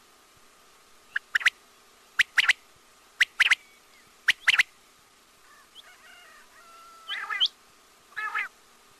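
Quail calling: four quick three-note phrases about a second apart, then softer and then louder nasal, rasping calls in the second half.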